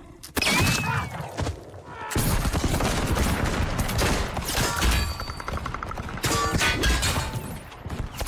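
Musket gunfire in a film soundtrack: a first shot just after the start, then from about two seconds in a dense run of shots from several guns, one after another.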